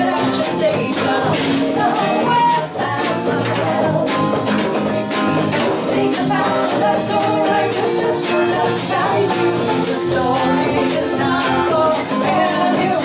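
Live folk song: a woman singing over a strummed acoustic guitar, with hand percussion keeping a steady beat.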